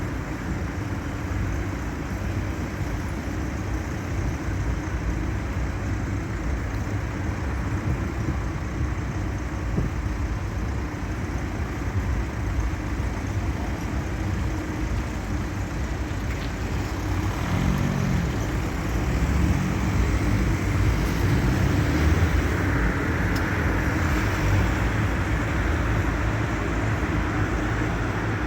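Steady low rumble of vehicle noise, with a faint hum coming in about two-thirds through as it grows a little louder.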